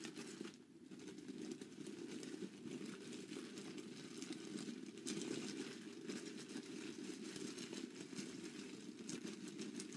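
Faint crinkling and rustling of a thin plastic file sleeve as ground charcoal and ammonium nitrate powder are shaken and mixed inside it, over a steady low hum.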